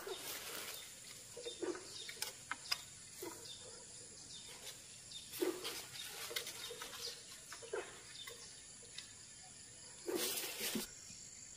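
Rustling in three short bursts, like something pushing through brush, with small birds chirping now and then in between.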